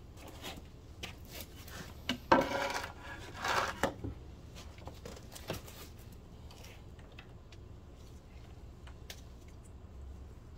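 A wooden board set down on a concrete floor with a knock about two seconds in, then scraped across it twice as it is pushed into place, followed by faint small clicks of handling.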